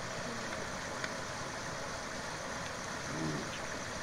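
Steady rushing of muddy, rain-swollen stream water pouring over a low stone gabion weir in a small cascade.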